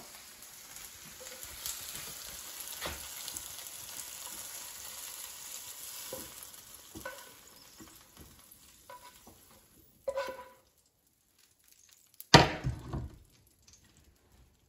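Green beans sizzling in a hot frying pan, the sizzle fading away over the first eight seconds or so after the heat is turned off, with spatula scrapes and clicks as the beans are moved onto a plate. A louder knock about ten seconds in and a sharp clatter about twelve seconds in, the loudest sound here.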